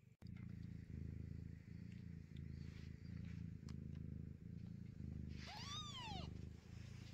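Scottish Fold mother cat purring steadily in slow, even pulses. About five and a half seconds in, her newborn kitten gives one short, high cry that rises and then falls in pitch.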